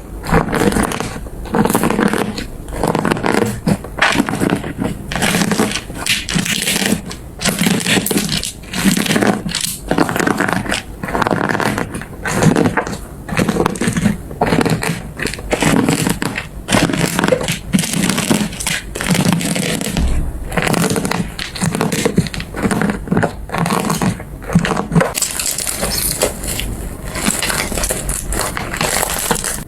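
Slime being squeezed, pressed and kneaded by hand, giving repeated noisy squishes roughly one to two a second. Near the end the sound becomes brighter and more continuous.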